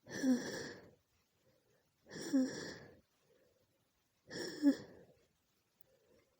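A woman sneezing three times, about two seconds apart, each sneeze a short burst with a sharp peak, brought on by a tickling nose.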